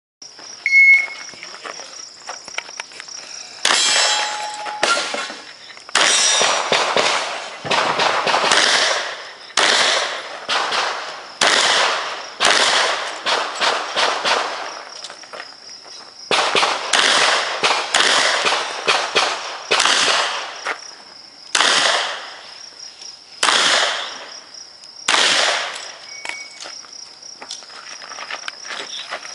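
Smith & Wesson 610 revolver firing shot after shot on a pistol-match stage, each report sharp with a short echo, the shots coming about a second or so apart in runs with brief pauses between them. A steady high-pitched insect buzz runs underneath.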